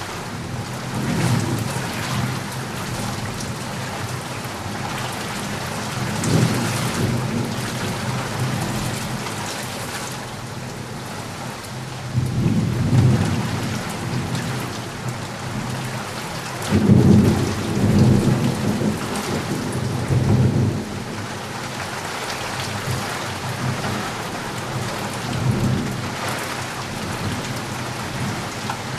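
Steady heavy rain hissing, with low rolls of thunder rumbling up several times, the strongest about two-thirds of the way through.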